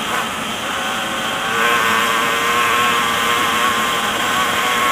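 Dirt bike engine running hard under way, getting louder about one and a half seconds in as the throttle opens further, then holding steady at high revs.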